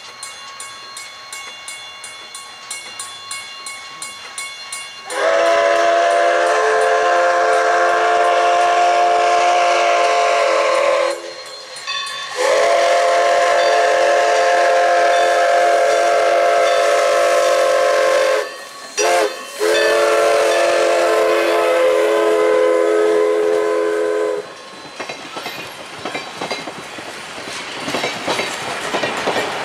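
Everett Railroad No. 11, a 1920 2-6-0 Mogul steam locomotive, blowing its chime-toned steam whistle: two long blasts, two quick short toots, then a final long blast. Its excursion coaches then roll past with a clickety-clack of wheels over rail joints.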